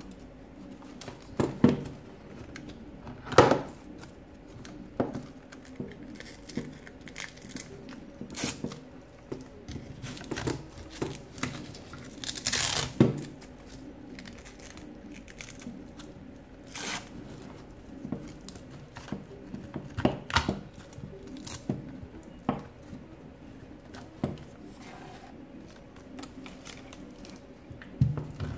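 Velcro straps being ripped apart and pressed down while fastened around a drone, with the longest rip, about a second long, roughly twelve seconds in. Scattered clicks and knocks of hard plastic being handled come between.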